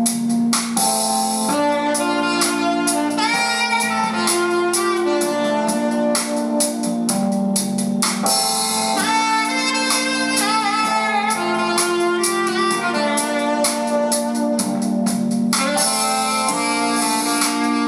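Instrumental music played back as a listening test of the FX-Audio FX-D502BT stereo amplifier: a held, wavering melody line over sustained low chords, at a steady loud level.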